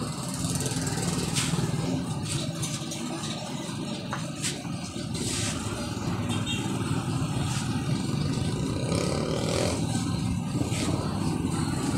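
Street traffic: motor vehicle engines running and passing, a steady low rumble with a few brief clicks.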